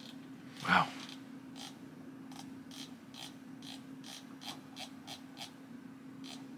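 Light, irregular clicks, about two to three a second, of someone working a computer's keys and mouse, over a steady low hum. A short spoken "wow" about a second in is the loudest sound.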